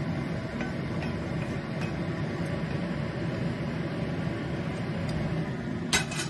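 Wooden spatula scraping and lightly tapping rice out of a nonstick frying pan into a bowl, over a steady low drone from a kitchen range hood fan. About six seconds in, the metal pan knocks sharply down onto the stove once.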